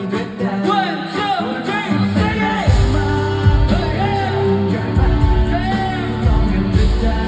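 Live pop song performance: male voices singing over a loud band backing, with a heavy bass coming in about two seconds in.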